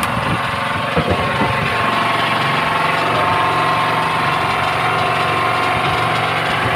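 An engine running steadily at an even idle aboard the outrigger fishing boat, with a few short knocks in the first second or so.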